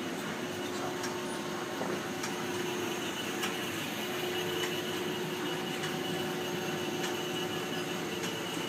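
Steady hum of printing-press room machinery, with a constant low tone and a few faint ticks.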